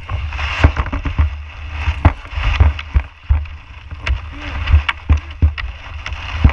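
Kayak on choppy water: irregular sharp knocks and splashes against the plastic hull, about two a second, over a steady low rumble.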